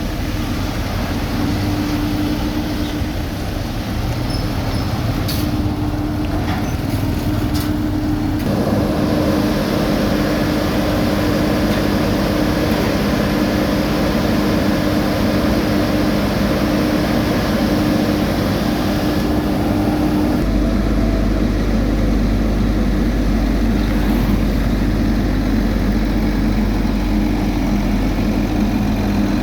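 Heavy diesel road-construction machinery running steadily, with a few sharp clicks about five to eight seconds in. A second engine note joins about eight seconds in, and a deeper rumble comes in about twenty seconds in.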